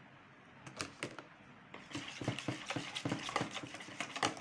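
Eggs and oil being beaten by hand in a plastic mixing bowl: a few knocks about a second in, then from about two seconds a quick, steady run of clicks and scrapes against the bowl.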